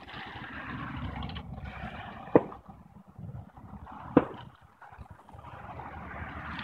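Car traffic passing on a road, a steady rush that fades in the middle and builds again near the end, with two sharp knocks, about two and four seconds in.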